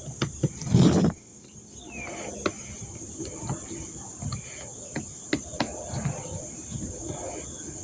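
Small clicks and taps of parts and screws being handled and screwed into a car door lock actuator, with a louder thump about a second in. A steady high-pitched chirring of crickets runs underneath.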